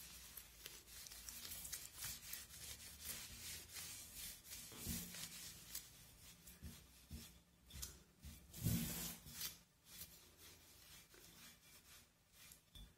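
A damp cloth rubbed over the paper-covered surface of a demijohn: faint wiping strokes, with louder ones about five and nine seconds in.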